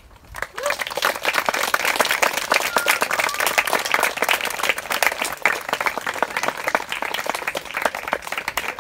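Audience applauding: many hands clapping together, starting about half a second in and dying down near the end.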